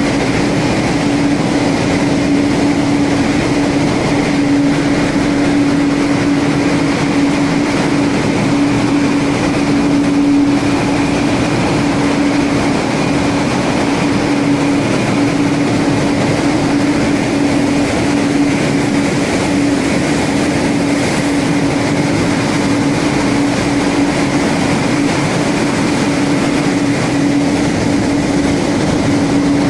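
Loud, steady machinery din of an LNG carrier's diesel-electric engine room, with a constant low hum over a dense wash of noise and a fainter steady whine above it.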